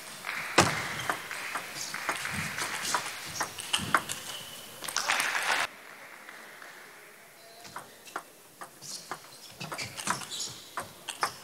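Table tennis ball being struck back and forth by bats and bouncing on the table in fast rallies, a quick series of sharp clicks. They sound over a background of hall noise that cuts off suddenly about halfway through.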